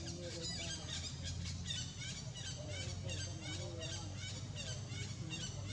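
A bird chirping rapidly, short high falling notes at about four a second, over a steady low hum.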